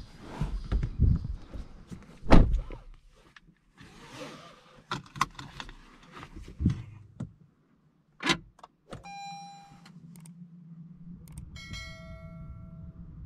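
Thumps and clicks of handling inside a Peugeot e-208, with a heavy thump about two seconds in and another about eight seconds in. Then two electronic dashboard chimes sound, each a single held tone with the second lower, over a steady low hum that starts with the first chime.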